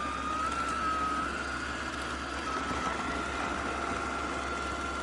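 BPMIO robot vacuum running while it cleans: a steady whir of its suction fan, with a motor whine that drifts slowly up in pitch and then holds.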